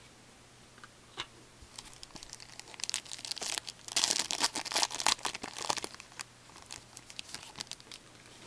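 Wrapper of a hockey card pack being torn open and crinkled by hand: a run of crackles that grows to its loudest about four to five and a half seconds in, then thins out.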